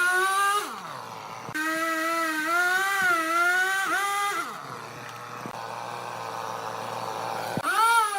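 Large wood lathe running: a motor whine whose pitch dips and rises as the load changes. It cuts off abruptly twice and is replaced for a few seconds by a rougher hiss.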